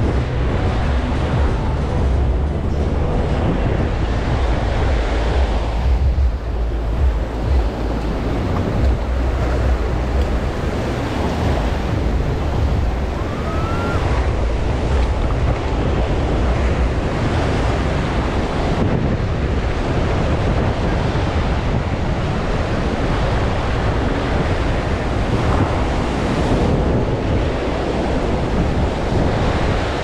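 Ocean surf washing onto a sandy beach, with wind buffeting the microphone as a low rumble, strongest in the first third.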